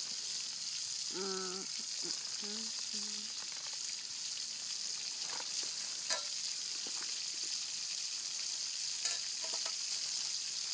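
Bacon sizzling in a frying pan: a steady frying hiss, with a few sharp clicks about six and nine seconds in.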